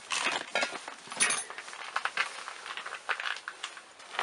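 Irregular run of light clinks and clicks from small hard objects knocking together, loudest near the start and about a second in.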